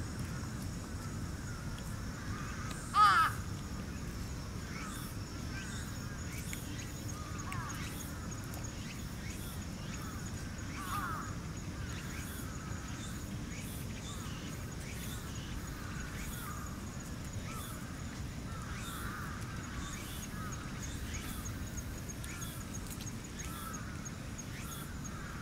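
Outdoor ambience with a faint steady high-pitched hum, broken about three seconds in by one loud crow caw. Soft short chirps or squeaks recur faintly throughout.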